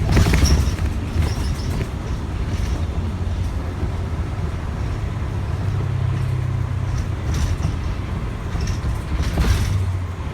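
Inside a moving city bus: steady low engine and road rumble, with a few short knocks and rattles from the bus.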